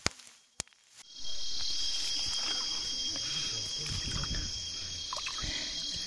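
A bundle of harvested rice stalks is struck twice with sharp rustling cracks as it is threshed. About a second in, a steady high insect chirring takes over, with one thin unbroken tone running through it and faint handling noise underneath.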